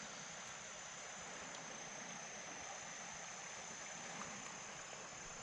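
Steady hiss of flowing creek water, with insects keeping up a steady high-pitched buzz throughout.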